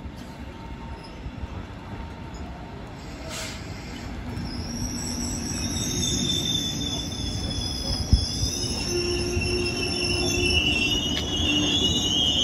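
DB Regio double-deck regional train pulling into the platform, its running rumble growing louder from about four seconds in. High-pitched squealing from the wheels and brakes sets in as it slows, with a second, lower squeal joining about halfway through.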